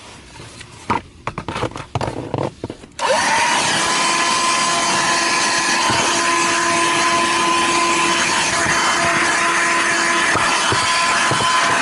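A few knocks and clicks of handling. Then, about three seconds in, a vacuum cleaner's motor switches on: its whine rises quickly and settles into a steady, loud run.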